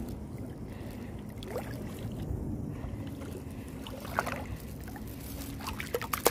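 Shallow seawater sloshing and lapping around a hand groping in the sandy bottom for clams, with a few small splashes. Near the end a handful of wet sand is lifted out of the water with a brief splashy sound.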